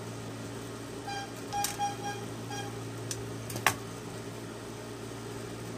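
Industrial sewing machine's motor humming steadily at rest while the fabric is set under the presser foot, with a few sharp clicks from handling at the machine, the loudest a little past halfway.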